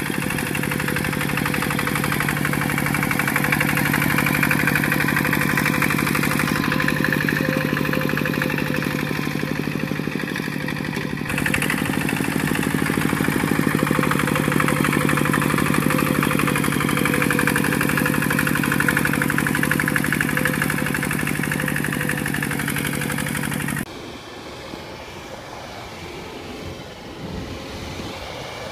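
Single-cylinder diesel engine of a Kubota two-wheel walking tractor running steadily under load as it pulls a tiller through mud. About two-thirds of the way through, the sound cuts abruptly to a quieter, more distant machine running.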